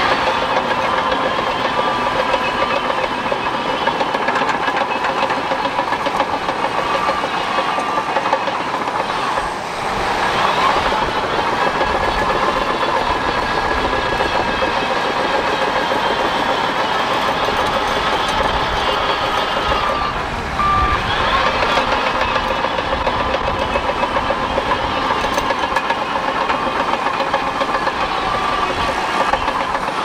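Bulldozer working: diesel engine running steadily, with the clank of steel tracks and a reversing alarm beeping in short spells a few times.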